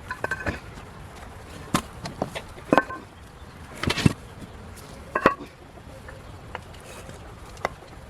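Irregular hard knocks and clinks of building materials such as bricks being moved and stacked by hand, about one sharp knock a second, the loudest a double knock about four seconds in.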